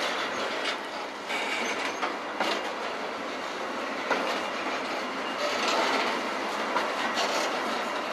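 Sulzer diesel locomotives rolling past at close range: a steady rumble of wheels on rail, with sharp clacks over rail joints every second or two.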